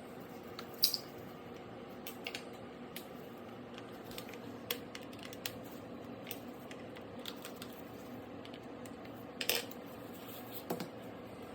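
Scattered small clicks and taps of a screwdriver and screws against the plastic bottom case of an HP Stream 14 laptop as the bottom screws are taken out, over a steady low hum.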